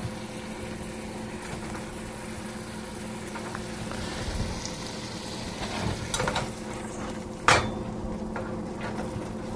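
Chicken in butter and white wine sizzling in a pan as the wine reduces, while artichoke hearts are dropped in by hand. A few light clicks, then one sharp knock about two seconds before the end.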